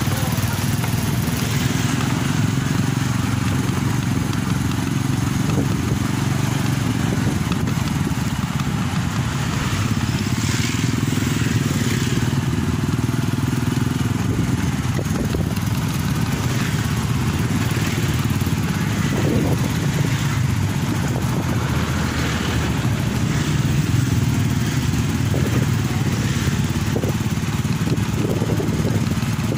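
Small motorcycle engine running steadily while riding along a road.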